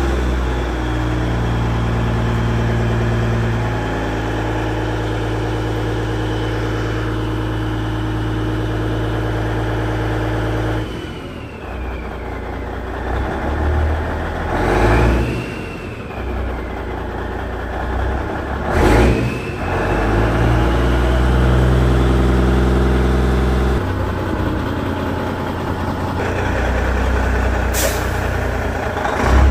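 Peterbilt semi truck's diesel engine running at idle, then changing note as the truck moves off, with a whistle gliding up and down in pitch and a few short, sharp hisses of air from the air brakes.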